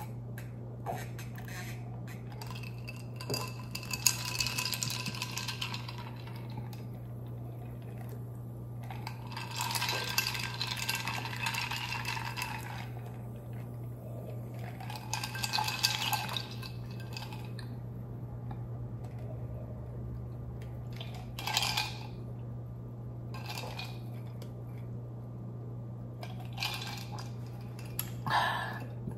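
Cola being sipped from a stemmed glass of ice: three long sips of two to three seconds each and several shorter ones, with ice clinking against the glass, over a steady low hum.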